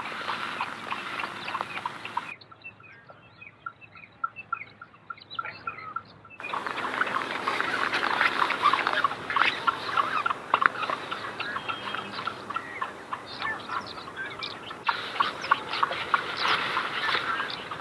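Birds and farm fowl calling, many short calls overlapping, quieter for a few seconds early on before the calls become dense again.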